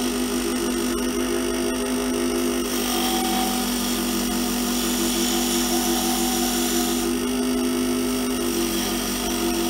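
Lathe running steadily with a hand-held turning tool cutting a spinning Delrin rod. The steady motor hum sits under a hiss of cutting that grows louder from about three seconds in until about seven seconds.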